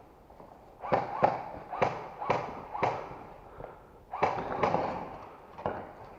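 Army Armament Glock 17 gas blowback airsoft pistol firing: five shots about half a second apart, then after a pause two more in quick succession, and a fainter pop near the end.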